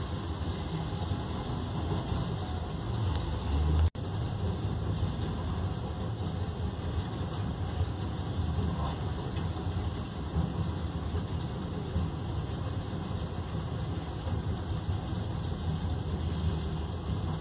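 Heavy diesel engines of a Cat 980M wheel loader and a waiting tipper truck running with a steady low rumble during loading. The sound swells and then cuts out for an instant about four seconds in.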